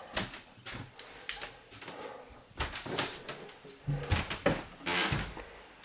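Cardboard moving boxes and household things being handled and shifted about: scattered knocks, clicks and a few rustling scrapes.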